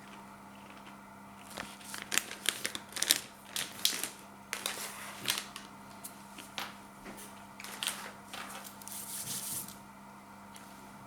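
Takis rolled corn tortilla chips being crunched while eaten: a run of sharp, irregular crunches and crackles, with a brief rustle near the end.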